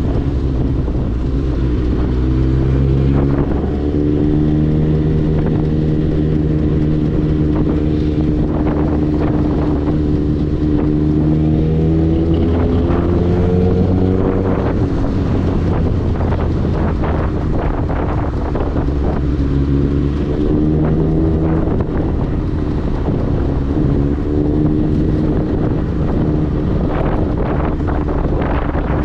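Suzuki GSX-S1000 inline-four engine running through a LeoVince aftermarket exhaust while riding. The engine note climbs, holds and drops several times as the throttle is opened and eased off, with wind rushing over the microphone.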